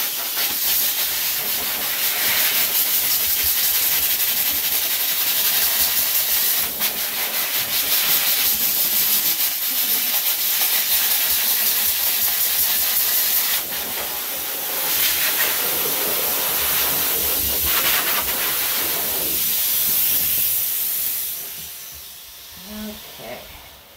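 Hose-fed forced-air dog grooming dryer blowing, a loud steady rushing hiss that shifts a little as the nozzle is moved over the coat; about 21 seconds in it is switched off and winds down.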